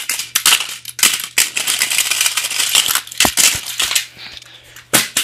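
Plastic toy engines clattering and knocking against plastic track as they are handled and dropped: a dense rattle for a couple of seconds, then a few separate sharp knocks, the last one loud near the end.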